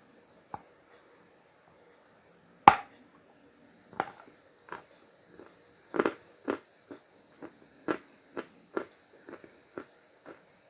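A piece of dried Khrapovsky chalk paste is bitten with one loud crack about two and a half seconds in, then chewed with a run of crisp crunches, about two a second.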